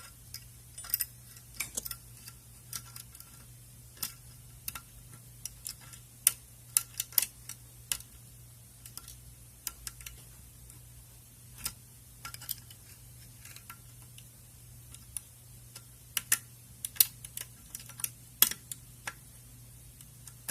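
Dimple pick and tension tool working the pins of an A&B dimple lock: irregular light metallic clicks and ticks as the pick pushes pins up and down the stack, the lock not yet open. A faint steady hum runs underneath.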